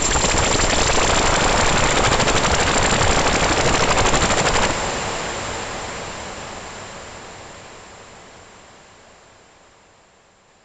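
ASM Hydrasynth digital synthesizer playing a noise-based factory preset: a dense, fast-rattling wash of noise with a thin high whistle on top. About a third of the way in it is released and fades slowly away.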